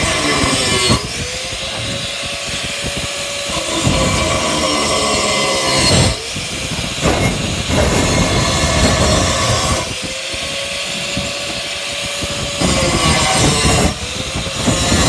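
Handheld electric angle grinder grinding into a steel bar, a harsh rasping grind over the motor's whine. The whine sinks when the disc is pressed into the metal and climbs back up as the load eases, about a second in and again near ten seconds.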